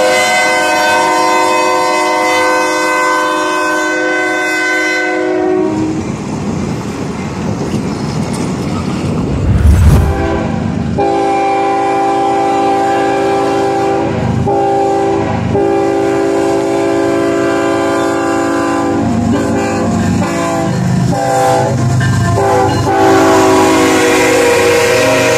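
Diesel freight locomotive air horns: one long, steady chord for about five seconds, then after a short stretch of train rumble and a loud thump about ten seconds in, a string of long and short horn blasts as a second train approaches and passes. Wheels clatter on the rail joints underneath.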